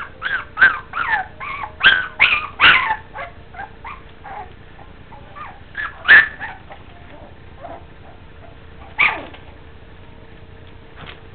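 Welsh terrier puppies yipping and whimpering in play. A quick run of short high yelps fills the first three seconds, followed by a few scattered ones; the loudest comes about six seconds in and another near nine seconds.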